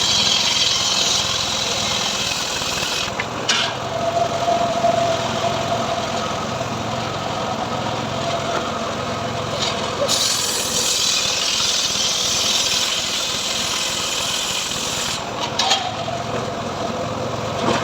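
Engine-driven portable sawmill (gergaji srekel) running steadily. A higher-pitched part of its noise drops out about three seconds in, returns about ten seconds in, and drops out again about fifteen seconds in.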